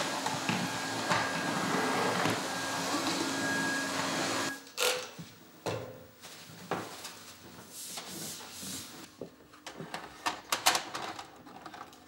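Canister vacuum cleaner running steadily with a hum, cutting off about four and a half seconds in. After that come scattered knocks and rustling from cleaning by hand.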